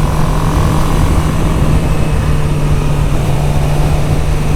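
Suzuki GSX-R600 inline-four engine running steadily at a light cruise in sixth gear, a constant even drone under heavy wind rush.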